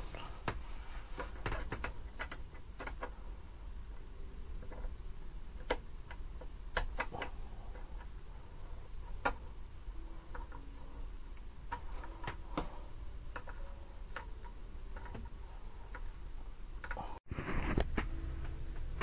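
Scattered, irregular light clicks and taps of a screwdriver and small plastic and metal parts being handled while a clip is fastened to hold a glass oil jar. Near the end the sound briefly cuts out, then comes back louder with a low hum.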